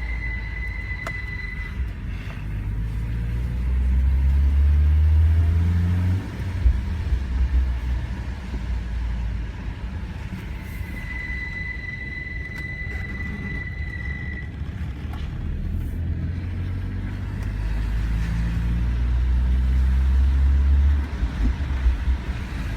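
BMW E46 engine running with a steady high-pitched screech from the engine bay. The screech stops about two seconds in and comes back about eleven seconds in for a few seconds. The engine revs up twice between the screeching spells. The screech has not been cured by a new drive belt and idler pulley, and it goes away only momentarily when the engine is revved.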